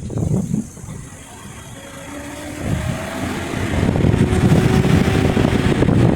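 Car engine accelerating, its pitch climbing slowly, with road noise getting louder from about halfway in.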